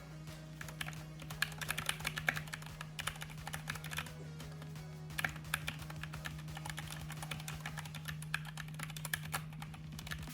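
Fast typing on an Obins Anne Pro 2 mechanical keyboard fitted with its stock keycaps: rapid clacking keystrokes with a brief pause about halfway, over background music.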